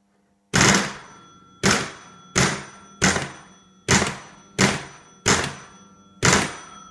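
Score bell of a 1950 Gottlieb Madison Square Gardens electro-mechanical pinball ringing as 10,000-point units are scored: eight sharp strikes, one every second or less, each ringing and fading before the next.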